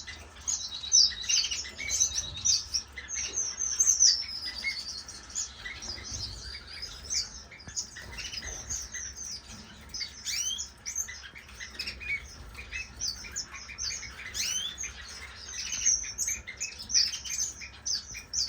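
A room of small captive finches chirping and calling: many short, high chirps overlapping, with a rapid trill in the first few seconds and a falling whistle about four seconds in, over a faint low hum.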